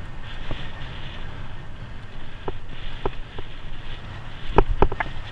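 Bicycle riding fast over a rough grass-and-dirt track: a steady rumble of wind and tyres on the camera, broken by sharp knocks and rattles as the bike jolts over bumps, several in quick succession near the end.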